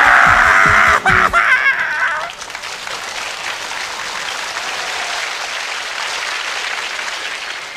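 Theatre audience breaking into loud laughter and applause over the sketch's closing music. The music stops about a second and a half in, and the applause carries on more quietly until it cuts off at the end.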